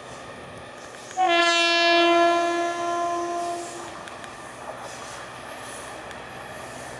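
Horn of a Sri Lanka Railways S11 class diesel multiple unit, one long blast starting about a second in and lasting some two and a half seconds, over the steady running noise of the approaching train.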